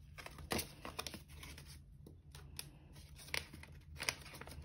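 Paper banknotes and a paper envelope being handled: faint rustling and crinkling of paper, with a few short crisp strokes as bills are fingered and slipped into the envelope.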